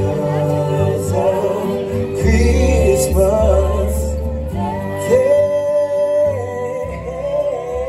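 Music: voices singing a melody over accompaniment with low bass notes, holding one long note about five seconds in.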